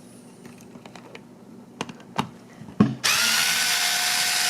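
A few light clicks and a knock, then about three seconds in a power screwdriver starts abruptly and runs at a steady pitch, backing out a screw.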